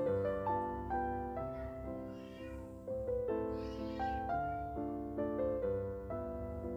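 Background piano music, a steady run of single notes changing every fraction of a second.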